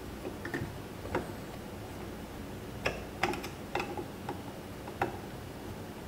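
Hands working on the interior unit of a Schlage keypad smart lock, making a string of short, sharp clicks and taps at irregular intervals, bunched together around three to four seconds in.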